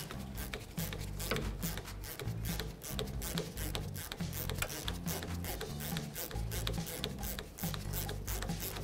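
Socket ratchet clicking in quick runs as an 18 mm castle nut is backed off a tie rod end stud, over background music.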